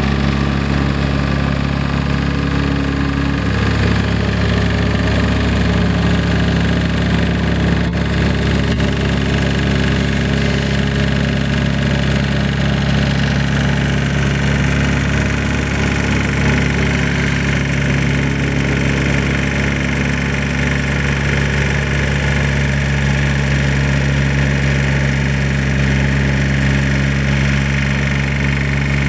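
Caterpillar M312 wheeled excavator's diesel engine idling steadily. In the opening seconds a plate compactor's engine runs with it, until the hum changes about three and a half seconds in.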